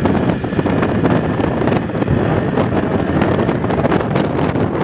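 Loud wind buffeting the microphone of a moving motorcycle, with the rumble of the engine and road under it.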